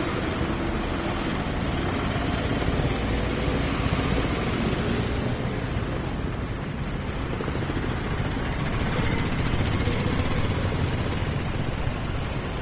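City street traffic: a continuous mix of vehicle engines and passing cars, swelling slightly in loudness twice.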